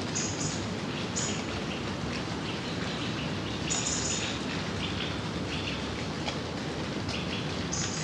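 Gentle rain falling steadily, with birds chirping briefly several times over it, the longest chirp about four seconds in.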